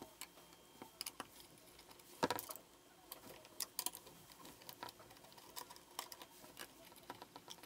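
Faint, scattered small clicks and ticks of a 3/16-inch Allen key working in a rifle's takedown screws as they are loosened. One slightly louder knock comes a little over two seconds in.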